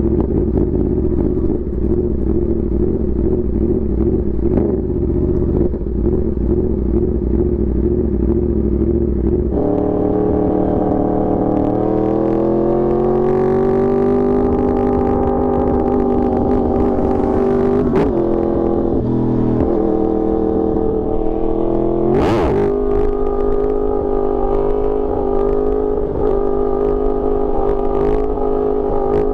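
Yamaha R1's inline-four engine running steadily while riding, climbing in pitch about ten seconds in as the bike speeds up, then holding a steady higher note. Two short sharp blips cut in around the middle and about two-thirds of the way through.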